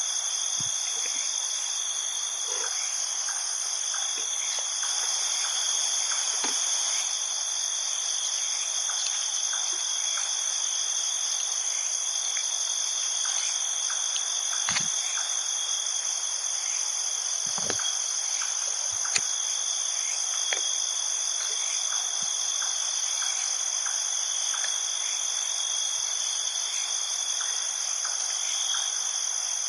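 Night insect chorus, crickets trilling steadily in two high-pitched bands, with a few soft scattered knocks and clicks.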